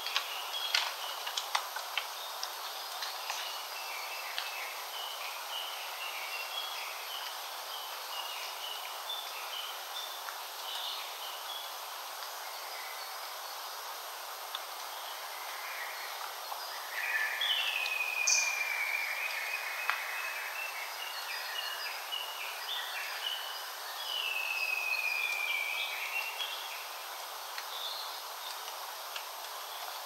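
Wild forest birds calling: a scatter of short high chirps throughout, and twice a long whistle of two to three seconds that slides slowly down in pitch. Under them is a steady background hiss, with a few sharp clicks in the first couple of seconds.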